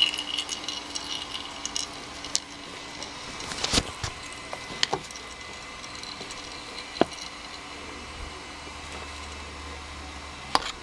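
Flushing oil draining from a Yamaha TDR 50 gearbox in a thin stream into a metal pan, a faint trickle broken by a few scattered sharp clicks.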